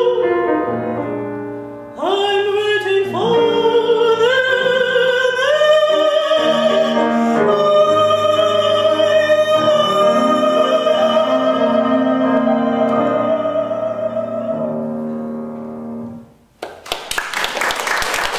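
A woman sings in a classical, operatic voice with grand piano accompaniment, climbing in steps to a long held final note with vibrato. The music ends about sixteen seconds in, and applause breaks out.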